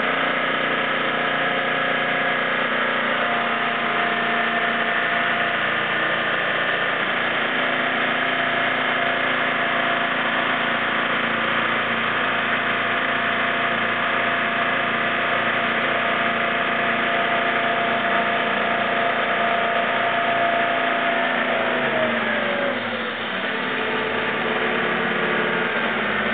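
Turbo diesel engine driving the jet unit of an aluminium jet boat, running steadily under way, heard close to the open engine bay. About 21 seconds in its pitch drops as it is throttled back, then it begins to pick up again near the end.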